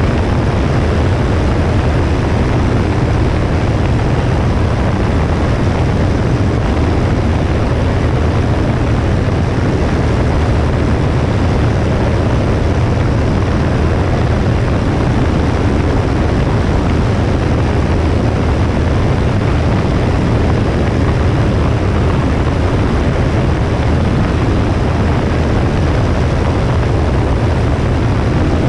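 Cessna 172S light aircraft's four-cylinder piston engine and propeller running steadily, heard from a camera mounted on the wing, with a heavy low rumble under a rushing noise.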